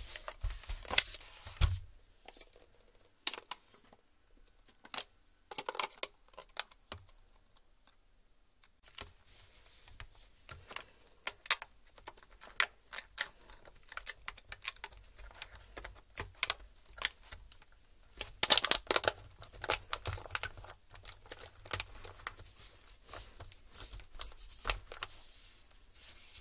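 Plastic clicks and taps of a Lenovo laptop keyboard being handled, laid into the palm rest and pressed down key by key to snap it into place, with a dense run of rapid clicking about two-thirds of the way through.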